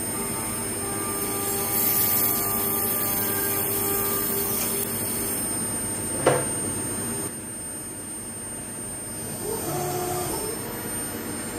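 Milling machine spindle running as a small end mill cuts a thin, very hard steel tube held in a dividing head, giving several steady whining tones. There is a sharp click about six seconds in, and the sound drops and changes pitch about a second later.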